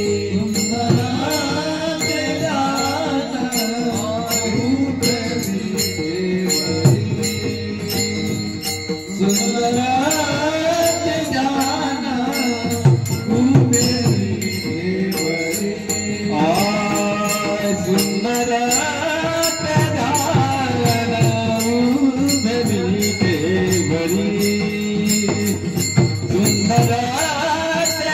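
Marathi Varkari bhajan: a male singer's long, drawn-out melodic phrases over a steady held drone, with jingling hand cymbals keeping an even beat.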